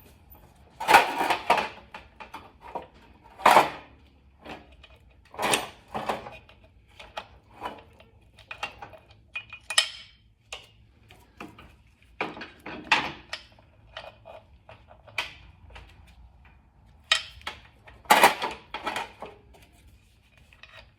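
Metal roller drive chain of a BSA A65 motorcycle clinking and rattling in irregular bursts as it is fed by hand around the sprocket, with several louder metallic knocks.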